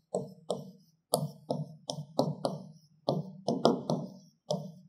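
Marker writing on a board: about a dozen short, quick strokes and taps as an equation is written out.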